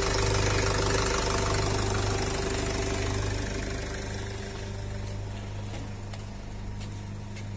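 Nissan X-Trail 2.0 dCi four-cylinder turbodiesel idling evenly on its freshly fitted replacement engine. The sound gets quieter about four seconds in.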